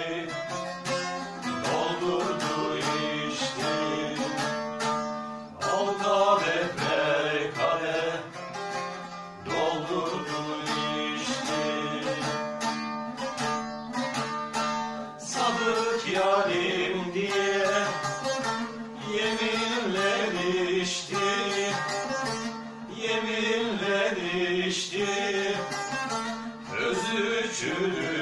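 Bağlama, the long-necked Turkish saz lute, played with a plectrum: a fast, busy plucked melody.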